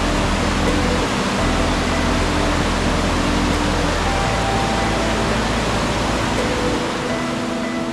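Loud, steady rushing of the River Dee in flood, fast white water pouring over rapids.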